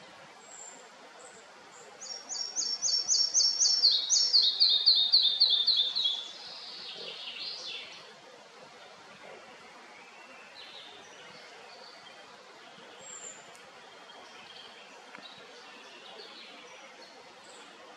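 Red-breasted flycatcher singing one song: a run of quick repeated high notes that steps down in pitch, ending in a lower falling phrase, starting about two seconds in and lasting about five seconds. Faint short chirps sound now and then over a steady background hiss.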